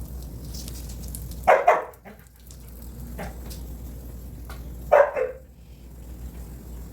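A dog barking: two quick double barks about three and a half seconds apart.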